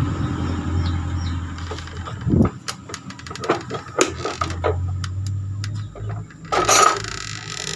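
Flat screwdriver prying a motorcycle headlight's plastic lens away from its housing. Scattered clicks and scrapes of the metal tip on plastic come as the heat-softened adhesive is worked loose, with a louder crackling burst near the end. A low hum runs under parts of it.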